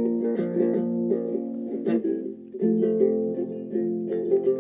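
Guitalele being fingerpicked, its plucked chords ringing on, with a short pause about halfway through.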